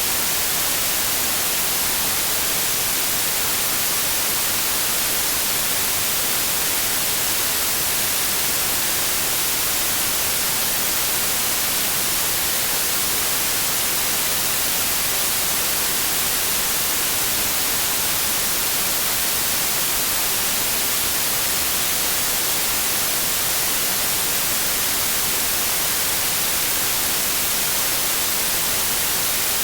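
Synthetic white noise: a steady, even hiss with its energy weighted toward the high end, unchanging throughout.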